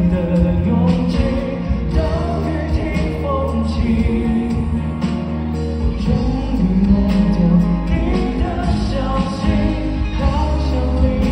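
A male singer sings into a microphone over a live band of keyboards, electric guitar and bass guitar, heard from within the concert audience.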